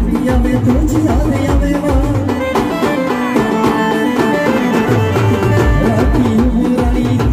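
Live band music: big bass drums beat a steady pulse under a wavering lead melody. About three seconds in, the drums drop out for a couple of seconds and then come back in.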